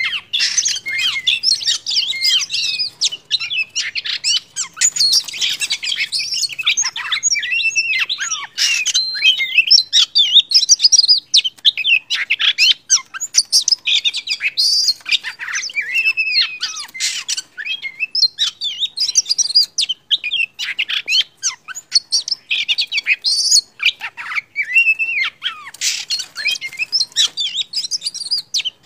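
Oriental magpie-robin singing: a long, unbroken run of rapid, varied whistled phrases, trills and chatters, with only short pauses.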